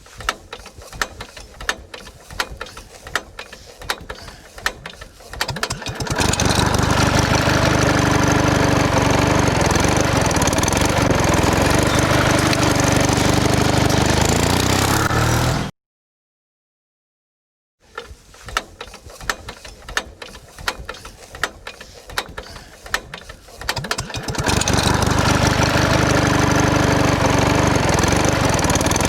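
A small engine ticks over at a slow idle with irregular clicking, then is opened up to a loud, steady run. It cuts off abruptly, and after about two seconds of silence the same slow ticking and run-up is heard again.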